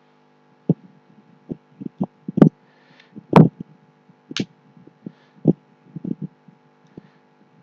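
Computer keyboard keystrokes: about a dozen dull taps at an irregular pace over a faint steady hum.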